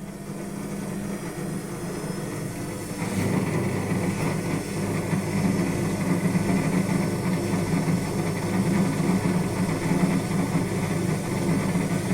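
Indesit WS84TX washing machine pumping out and spinning with a loud, steady low hum and vibration, which steps up about three seconds in. The noise comes from a faulty drain pump that strains as it pumps water out of the drum.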